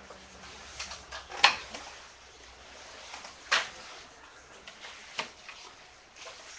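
Wooden handloom being worked, clacking: a few sharp knocks, the two loudest about two seconds apart.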